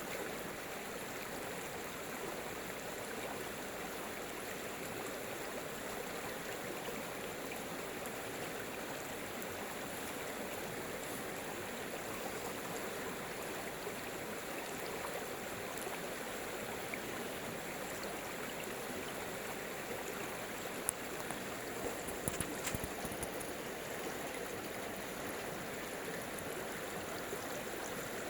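Stream water running steadily, with a few brief clicks about three-quarters of the way through.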